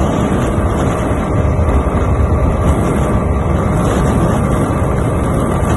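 Honda XR 250 Tornado single-cylinder four-stroke motorcycle engine running hard at a steady high speed, mixed with heavy wind rush on the microphone.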